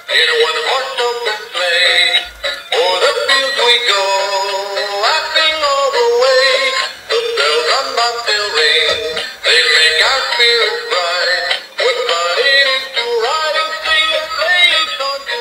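Battery-powered singing Santa Claus toy playing a Christmas song through its small built-in speaker: a sung melody over a jingly tune, thin and without bass.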